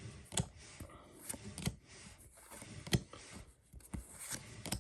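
Pokémon trading cards being handled and flipped through one by one: irregular soft clicks and snaps of card against card, about eight of them, over a light papery rustle.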